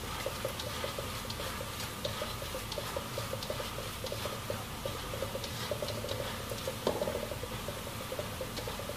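Chopped tempe frying in hot oil in a wok, sizzling steadily, near the end of its first frying, while a spatula stirs it with many short scrapes against the pan.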